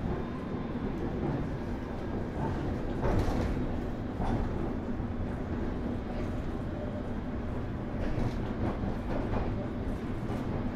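Inside a London Underground S7 stock (Bombardier Movia) train car: steady rumbling running noise, with a few short rail clanks about three and four seconds in and more near the end.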